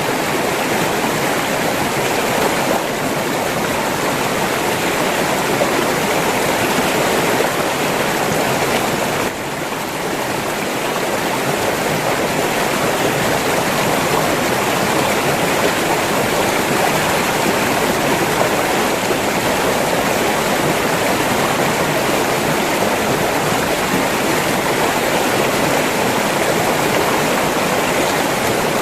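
River water flowing steadily, an even, continuous rush of water that dips briefly about nine seconds in.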